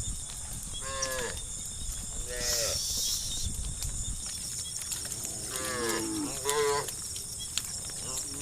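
Farm cows mooing: short calls about a second in and again about two and a half seconds in, then several overlapping moos at different pitches past the middle.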